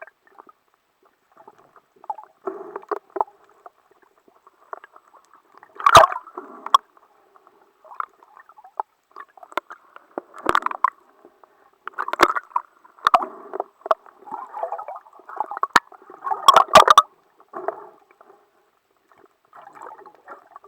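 Muffled underwater water noise of bubbling and sloshing, coming in irregular bursts, with a number of sharp clicks and knocks scattered through it; the loudest bursts come about six seconds in and again near the middle and the last third.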